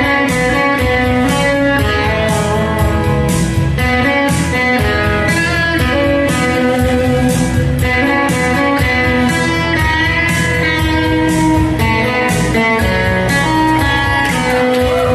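Live instrumental music from electronic keyboards and an electric guitar, with sustained keyboard notes over a steady beat.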